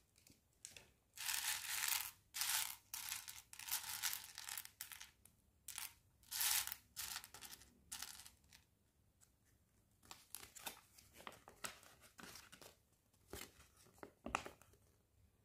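Packaging crinkling in bursts over the first half, followed by sparse light clicks of small plastic mini bricks being picked up and pressed together.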